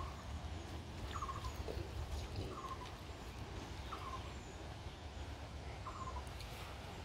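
A bird calling over and over, a short falling note repeated about every one and a half seconds, over a steady low rumble.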